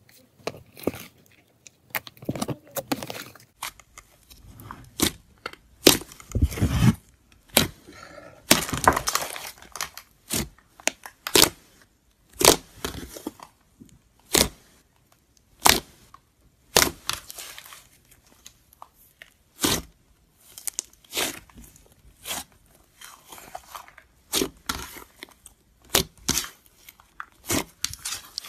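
A big batch of thick green slime being pressed, stretched and folded by hand, giving sharp pops and crackles at irregular intervals as trapped air bursts, with a few longer tearing, squishing stretches.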